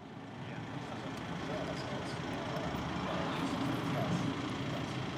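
Steady rumble of road traffic, growing louder over the first second or so, with faint voices in the background.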